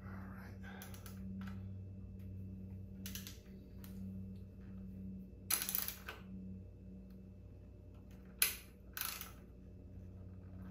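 Light metallic clicks and clinks of a fork slider and Allen bit being handled and screwed by hand into the end of a motorcycle's front axle spindle. There are small ticks in the first half and three sharper clinks in the second half, over a steady low hum.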